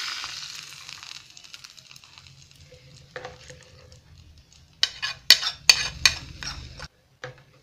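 Hot oil with tempered mustard and cumin seeds sizzling as it is poured into cold buttermilk, the hiss dying away about a second in. Then a spoon stirring in the bowl, and a quick run of sharp clinks and knocks of the spoon and pan against the bowl, the loudest sounds.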